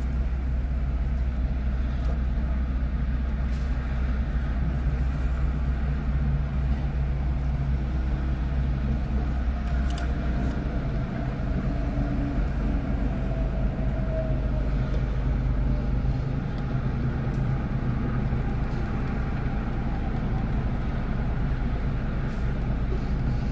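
Steady low rumble of freeway traffic, with a faint engine hum.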